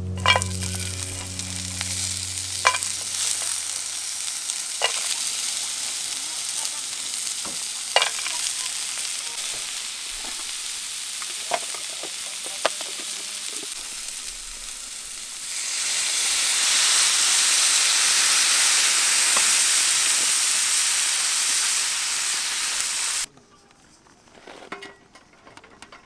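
Food sizzling as it fries in a pan, with sharp clicks now and then from a utensil stirring and tapping against the pan. The sizzle grows louder about two-thirds of the way in, then cuts off suddenly near the end.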